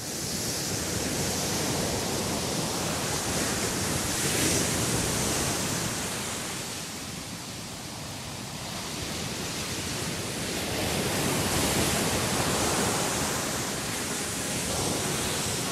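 A steady rushing noise like surf or moving water, swelling and easing slowly about twice, with no distinct events in it. Faint musical tones begin to come in near the end.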